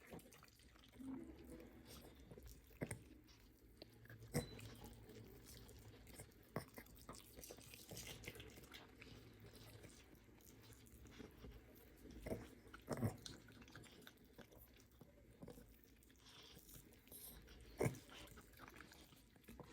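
Dog chewing on a chicken leg, with a handful of sharp crunches spread a few seconds apart between quieter gnawing.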